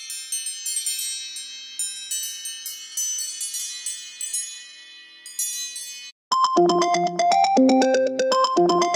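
Two mobile phone ringtones, one after the other. First comes a high, tinkling chime melody that rings on and slowly fades, cut off about six seconds in. After a moment's gap comes a louder, lower synthesizer melody that repeats a short phrase.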